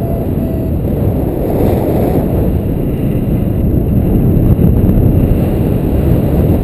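Wind noise from the airflow of paragliding flight buffeting the microphone: a loud, steady low rumble. For the first moment a variometer gives faint short beeps, a few a second, then falls silent.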